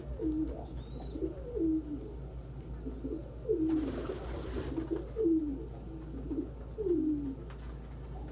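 Domestic pigeons cooing: a series of low coos, each falling in pitch, about one a second. A short rustling noise comes a little before the middle.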